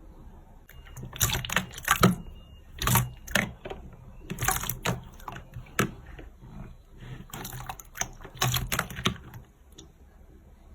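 Slime being pressed and poked by hand, giving clusters of crisp crackling clicks with short pauses between them.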